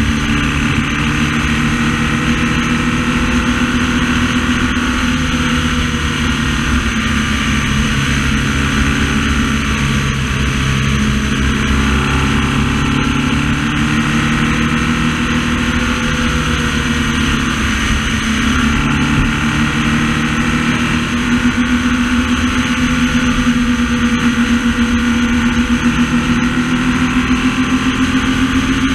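BMW R1200S boxer-twin engine running at road speed, heard from a camera on the front mudguard with steady wind and tyre noise over it. The engine pitch drifts with the throttle and rises somewhat in the last several seconds.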